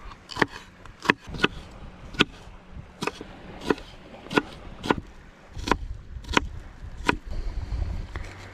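Knife chopping red capsicum and red onion on a wooden cutting board: about eleven sharp knocks of the blade on the board at a slow, uneven pace.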